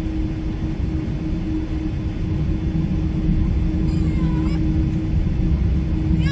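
Boeing 777-300 airliner cabin noise heard from the rearmost seat: a steady low rumble of engines and airflow with a constant hum.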